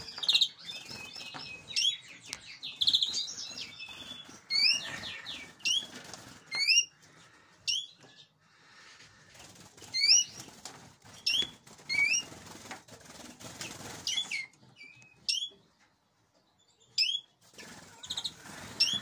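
Finches in an aviary flight, greenfinches and canaries among them, calling with short sharply rising call notes, one every second or so. Buzzy trilling notes come in the first few seconds, with wing flutters as birds fly between perches, and the calls thin out for a couple of seconds near the end.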